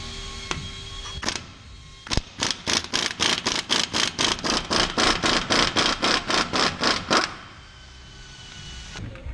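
Pneumatic impact wrench hammering on a fastener of a Chevy truck's rear axle during differential teardown. It starts about two seconds in, runs as an even, rapid series of sharp blows, about four to five a second, for about five seconds, and then stops.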